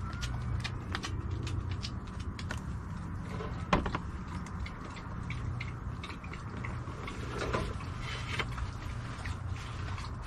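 Light clicks and knocks of plastic plant pots and a plastic watering can being handled and set down, with one sharper knock a little under four seconds in, over a steady low hum.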